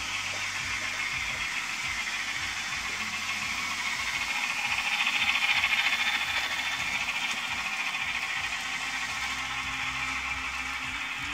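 N scale steam locomotive and passenger cars running up a helix: a steady high whir of the small motor and wheels on the track, loudest about five to six seconds in as the engine passes close.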